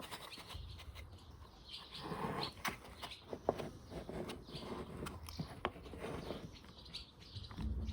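Light clicks, taps and rustling of small parts being handled during repair work on a lawn mower's recoil starter, with a dull knock near the end.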